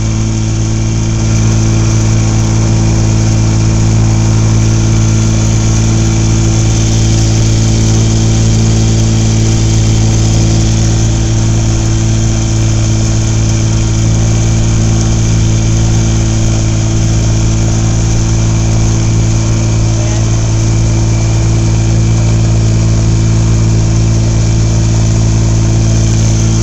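Boat motor running steadily under way, a constant low-pitched hum with a low rumble beneath, a little louder from about two seconds in.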